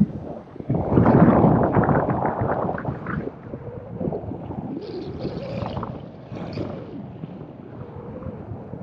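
Wind rushing and buffeting over the camera microphone in paragliding flight, loudest and gustiest for a couple of seconds near the start, then easing to a lower, uneven rush.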